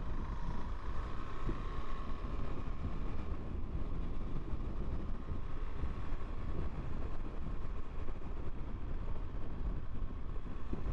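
Motorcycle on the move: steady low engine and road rumble with wind buffeting the microphone, and a faint steady whine above it.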